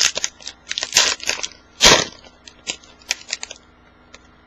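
Plastic trading-card pack wrapper crinkling and being torn open, with two louder rips about one and two seconds in and small clicks and rustles of cards being handled around them.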